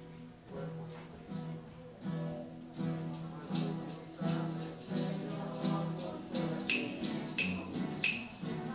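Acoustic guitar strummed with hand percussion keeping a steady beat: live communion music starting up, growing louder over the first two seconds.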